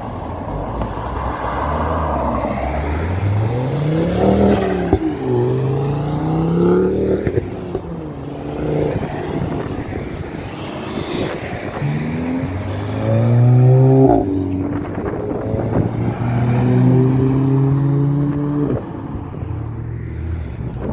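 A car's engine accelerating hard, its revs climbing and then dropping back at each gear change. It is loudest about two-thirds of the way through, and the note cuts off sharply near the end.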